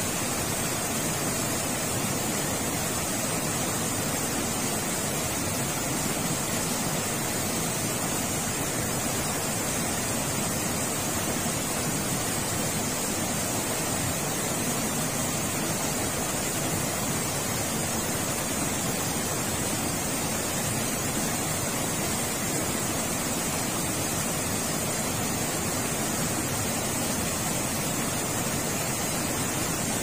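Shallow rocky stream rushing over boulders in small cascades: a steady, even rush of water.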